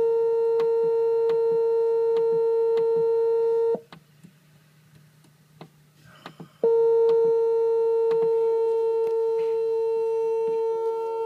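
Glider electronic variometer's audio speaker sounding a steady single-pitch tone. It cuts off about four seconds in, stays off for about three seconds, then comes back on, with faint clicks now and then.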